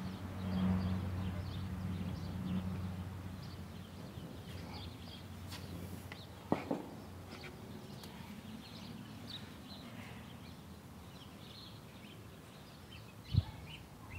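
Quiet outdoor rural ambience with scattered small bird chirps. A low steady hum fades out after the first few seconds, a sharp click comes about six and a half seconds in, and a thump near the end.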